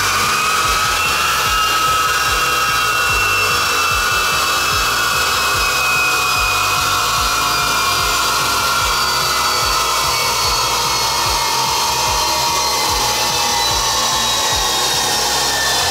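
Chassis dyno rollers and the Golf GTI Mk5's driven wheels spinning down after a power run: a steady whine with a rushing rub under it that rises slightly at first, then slowly falls in pitch.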